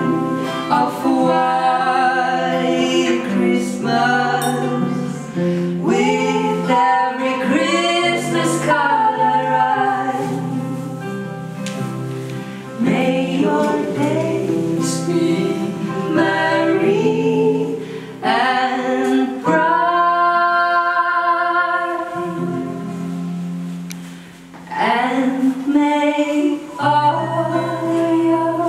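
Two women singing together, accompanied by two strummed acoustic guitars.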